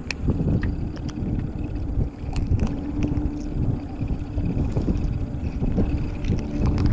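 Wind buffeting the microphone in an uneven low rumble over the steady hum of a small boat's idling motor, with scattered small clicks as a hooked fish is handled with fish-gripping pliers.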